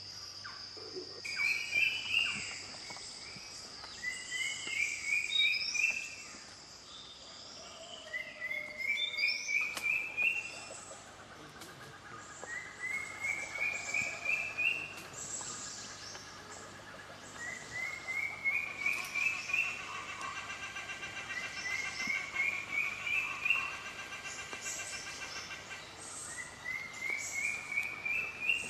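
Bird song: a phrase of about half a dozen quick notes stepping upward in pitch, repeated roughly every four seconds, with softer calls from other birds. A steady insect buzz runs under the first few seconds.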